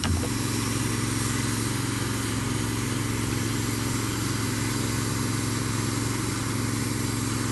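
Hand-held hot-air plastic welding gun running steadily: a constant motor hum under a rush of hot air, as a pond-liner seam is heat-welded.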